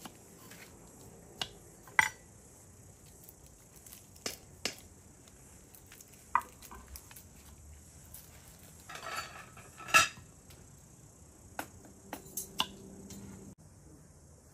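Kitchen utensils and cookware knocking and clinking: a scattering of sharp clinks and knocks, the loudest about two seconds in and about ten seconds in.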